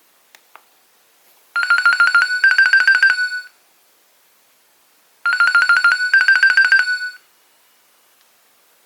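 Nokia 2300 mobile phone playing a ringtone: a phrase of rapid trilled beeps that steps slightly up in pitch halfway, played twice with a pause of about two seconds between. Two faint clicks come just before the first phrase.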